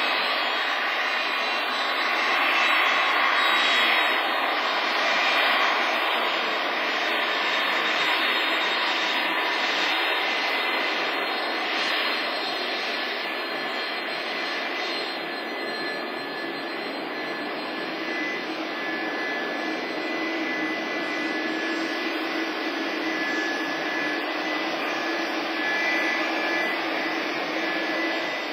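Turbofan jet engines of an Airbus A310-304 (General Electric CF6-80C2) running: a steady rushing roar with a thin high whine, easing off a little about halfway through.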